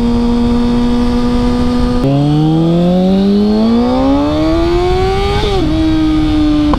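2007 Kawasaki ZX6R inline-four with an MJS Performance cat-delete header, under way at steady revs. About two seconds in it shifts up, the revs dropping, then pulls hard with the pitch climbing steadily for about three seconds. A quick shift near the end brings it back to a steady note.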